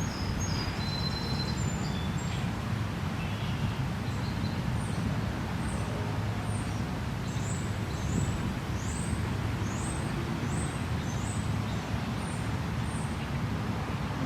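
A songbird calling a run of high, short, down-slurred notes about twice a second through the middle of the stretch, after a few brief whistled notes near the start, over a steady low background rumble.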